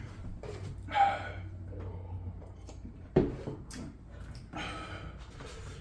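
A person breathing out hard and sniffing while suffering the burn of a very hot sauce, with a single sharp knock about three seconds in, over a steady low room hum.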